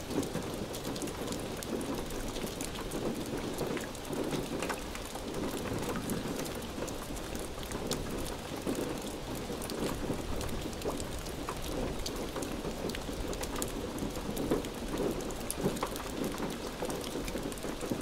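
Steady heavy rain falling, with many sharp drop hits close by.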